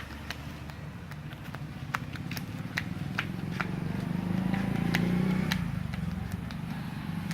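Barber's hands working on a customer's head during a head massage: scattered sharp clicks and taps, a few a second, over a low rumble of traffic that swells about four to five seconds in.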